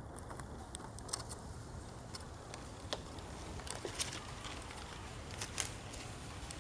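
Quiet outdoor background: a steady low rumble with a few scattered faint clicks and ticks.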